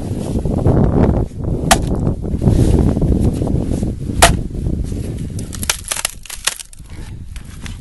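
Fiskars X15 axe striking a stick on a wooden chopping block twice, splitting it, followed by a quick series of cracks as the split wood is pried apart, over a steady low rumble.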